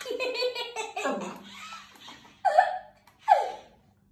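Beagle puppy barking at a toy car: two short, high barks about a second apart in the second half, after some pulsed, laughter-like sounds at the start.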